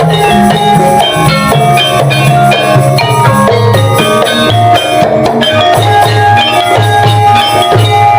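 Javanese gamelan ensemble playing, with pitched metal instruments ringing over kendang hand-drum strokes in jaipongan style.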